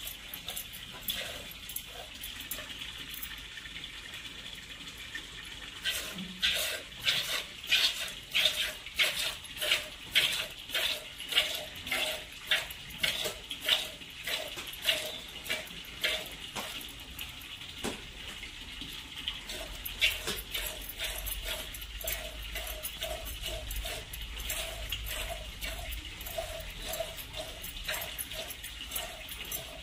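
Milk squirting in jets into a small plastic pail during hand milking, about two squirts a second. The squirts are sharpest and loudest in the first half, and softer and more ringing in the second half.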